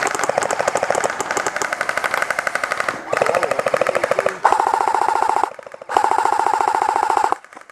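Airsoft gun firing long full-auto bursts: four strings of rapid clicks with short pauses between them, the later strings carrying a steady whine.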